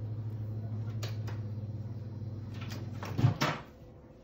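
A kitchen appliance running with a steady low electric hum, which cuts off about three seconds in, followed at once by a loud clunk.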